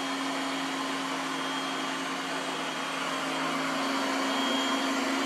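Ecovacs Deebot T9+ robot vacuum running over carpet: a steady suction hum and whir that grows slightly louder in the second half.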